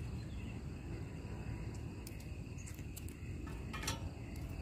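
Wind buffeting the microphone as a fluctuating low rumble, with a few faint clicks or rustles, the clearest shortly before the end.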